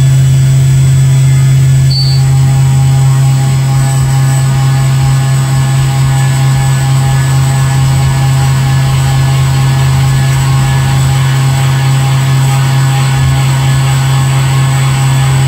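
XYZ560 CNC mill cutting 6061 aluminium with a 12 mm three-flute end mill at 8,000 rpm, taking deep side cuts (19.5 mm depth, 2 mm stepover) at 2,500 mm/min under coolant spray. A loud, steady hum with several steady high tones over it, holding even throughout the cut.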